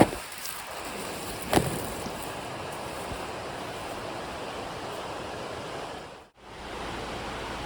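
A river rushing steadily, with two sharp knocks, one at the very start and one about a second and a half in, and a brief dropout near the end.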